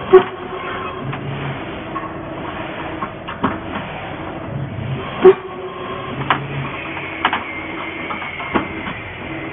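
CNC 2D wire bending machine for 8 mm wire running through repeated bending cycles. Short spells of motor hum alternate with clicks, and a loud clack comes about every five seconds, near the start and again about five seconds in.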